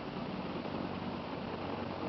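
Helicopter flying, a steady rush of turbine and rotor noise with a low hum and no change in loudness.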